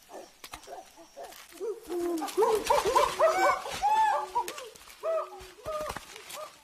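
Several chimpanzees calling together: a burst of overlapping rising-and-falling hoots, loudest about two to four seconds in, with a few more calls near the end.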